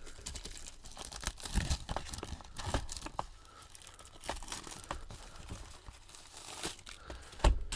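Plastic shrink wrap being torn and crinkled off a sealed trading-card box, a run of irregular crackles and rips. A single loud knock comes near the end.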